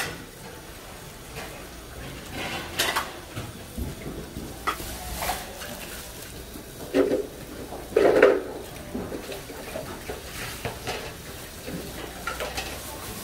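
Gloved hands threading sheets of fish cake onto wooden skewers: scattered rustling of plastic gloves and packaging and light clicks of the skewers, with two louder bursts about seven and eight seconds in. Kitchen clatter of a food stall runs behind.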